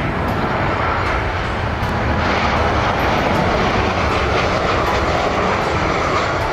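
Jet noise from a Boeing 737 airliner passing low on its landing approach: a loud, steady rush of engine noise that starts abruptly and holds.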